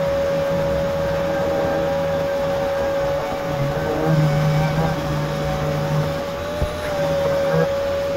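Power sander with a wet/dry vacuum on its dust-extraction hose, running steadily while sanding a car's painted body panels. A steady high whine holds one pitch, dipping briefly near the end, over a low hum that rises and falls as the sander works.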